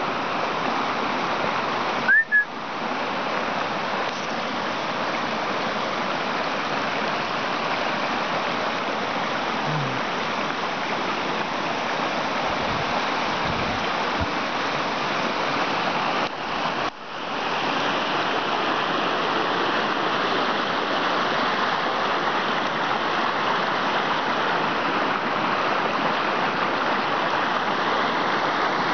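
Small forest stream rushing over rocks in shallow rapids, a steady wash of water. There is a brief loud bump about two seconds in.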